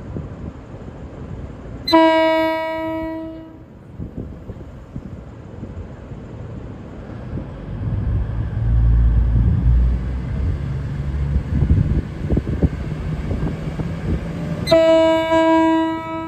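V/Line VLocity diesel railcar's horn sounding its low note twice: a blast of about a second and a half about two seconds in, and a longer one near the end. In between, the train's low rumble swells as it pulls away.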